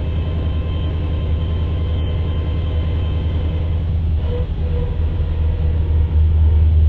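In-cabin sound of an LS V8-swapped Nissan S14 driving at about 2,300 to 2,400 rpm: a steady low engine drone with road noise, louder in the last second.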